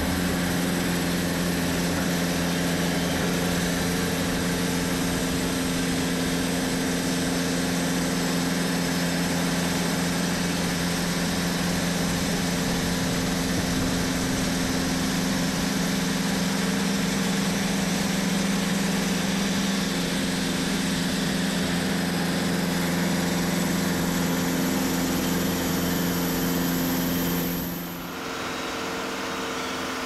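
TimberKing 2520 band sawmill running steadily as it saws hardwood logs into boards: a constant engine hum with several steady low tones over a dense hiss. Near the end the sound dips briefly and changes.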